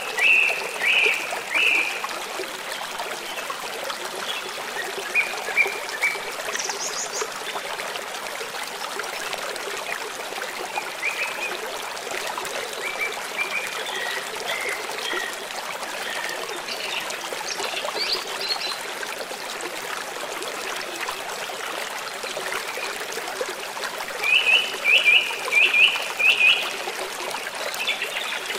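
Stream water running and trickling steadily, with small birds chirping over it: a quick run of chirps at the start, scattered calls through the middle, and a louder run of about five chirps near the end.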